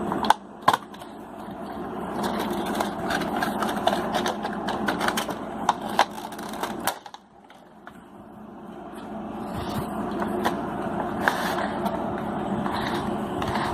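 Cardboard box and plastic packaging insert being handled as a Funko Pop vinyl figure is taken out: scraping and rustling with many sharp clicks, briefly dropping off about seven seconds in before the handling resumes.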